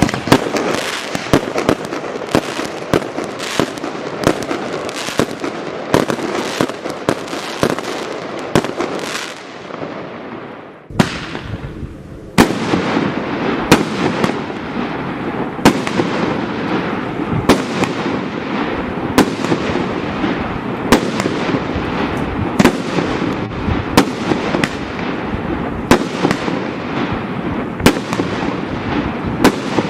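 Primed Pyrotechnics 'Full House' firework cake firing: a dense, continuous crackle with sharp bangs about once a second. The crackle fades out about ten seconds in, and a new section starts up about a second later.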